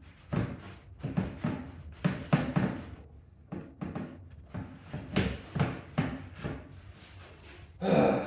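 Wooden block and fence being slid and knocked into place on a router table jig: a string of irregular wooden knocks and rubbing, with one louder knock near the end.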